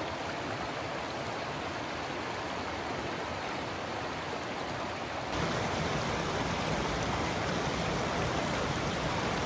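Mountain creek flowing: a steady rush of running water that gets a little louder about five seconds in.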